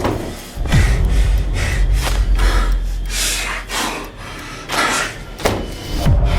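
Music with a deep bass that slides down in pitch near the start and near the end, with a series of short, sharp breathy gasps over it at irregular intervals.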